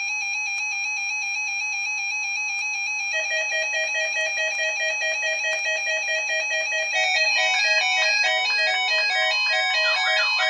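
Weather alert radios sounding their electronic alarm: a fast-warbling, buzzy beep tone. A second radio joins at a lower pitch about three seconds in, and more overlapping alarm tones pile on near the end as the radios alert to an EAS Required Weekly Test.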